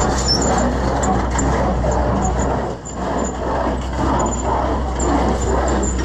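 Tractor engine running steadily while driving an Oliver 520 baler through its power take-off, the baler's mechanism turning over on its first run through a bent PTO shaft.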